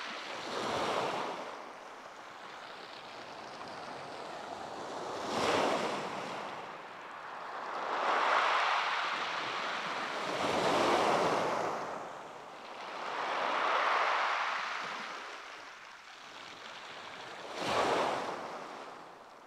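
Waves breaking on a shingle beach, surging in and drawing back every few seconds, with two sharper crashes, about five and eighteen seconds in.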